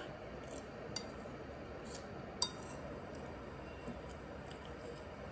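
A spoon clinking against a ceramic bowl of noodle soup: several light clinks while eating, the sharpest about two and a half seconds in.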